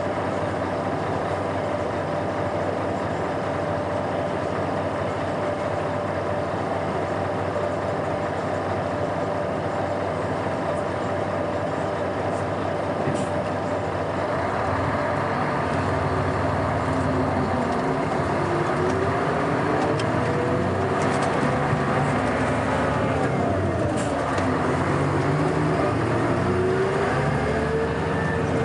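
Scania K420 coach engine running steadily, then from about halfway its revs rise and fall several times as the bus accelerates through the gears.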